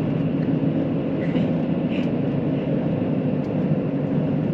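Steady running noise heard inside a KiHa 85 series diesel express railcar under way: a low, even drone of the underfloor diesel engine and the wheels on the rails.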